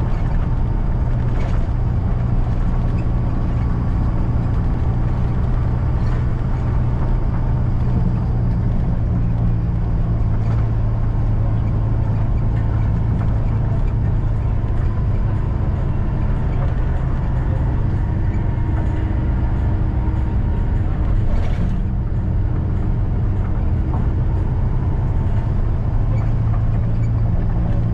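Steady engine drone and road noise heard from inside a moving bus, with a few faint knocks from the body.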